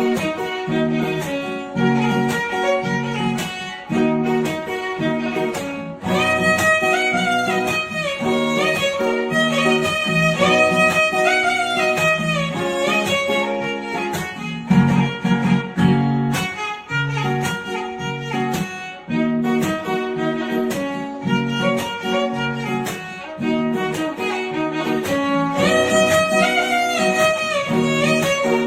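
Background music of bowed violin melody over a plucked guitar accompaniment.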